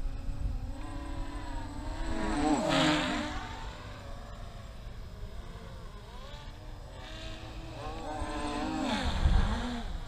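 MJX Bugs 3 quadcopter's brushless motors and propellers whining as it makes two fast fly-by passes, about three seconds in and again about nine seconds in, the pitch swooping up and dropping as it goes past each time.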